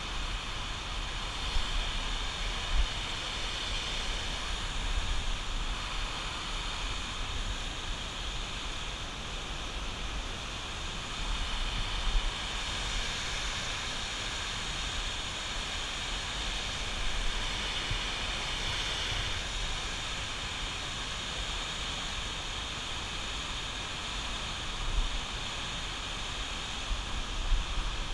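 Steady rush of water pouring through the dam, with wind buffeting the microphone in low gusts.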